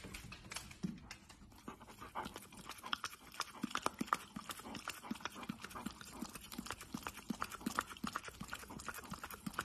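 A dog's claws clicking on a wooden floor as it walks up, then the dog licking at a small cup held out to it: a quick run of short wet licks, several a second, that goes on to the end.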